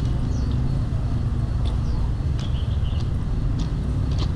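Outdoor street ambience: a steady low rumble of distant traffic or wind, with scattered light clicks and a few short high chirps.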